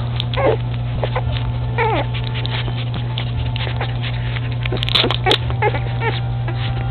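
Newborn puppies squeaking and whimpering as they nurse: several short high squeals that fall in pitch, about half a second in, at two seconds, and twice close together around five seconds, with small sucking and shuffling ticks between them. A steady low hum runs underneath.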